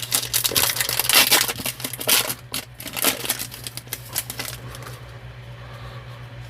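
Crinkling and rustling of a foil trading-card pack wrapper being torn open, and the cards handled, over a steady low hum. The crackle is densest for the first few seconds and thins out near the end.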